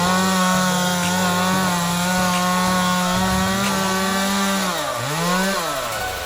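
Chainsaw running at full throttle, a steady high engine whine that drops sharply and revs back up about five seconds in, then falls away near the end.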